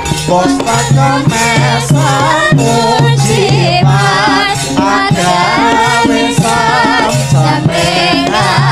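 Javanese gamelan music with a sinden, a female singer, singing into a microphone in a wavering, ornamented voice over regularly repeating low struck notes.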